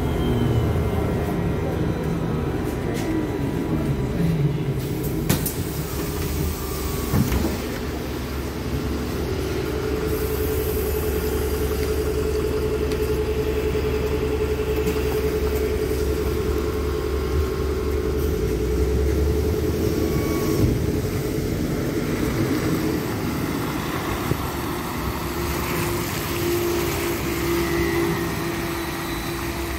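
Trolza-5265 Megapolis trolleybus, with a steady low rumble throughout. Its electric drive whine glides in pitch in the first few seconds, then a steady hum holds while it runs and stands at the stop.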